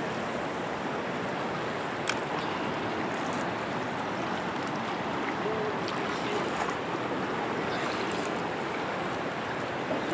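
Steady rush of a fast-flowing river current, with a few faint clicks.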